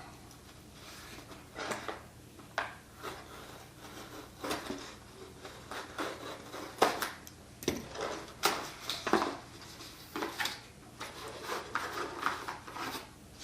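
Packaging of an XLR microphone cable being worked open and handled by hand: irregular rustling, crinkling and sharp little taps and snaps, busier in the second half.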